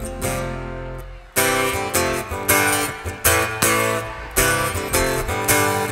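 Live band playing an instrumental passage on acoustic guitar and other plucked strings. A held chord fades away, then from about a second and a half in, strummed chords come sharply about twice a second.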